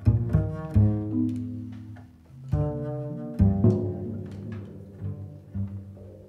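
Acoustic double bass played pizzicato: a jazz bass line of plucked notes, each ringing and fading. The notes thin out and grow quieter over the last couple of seconds.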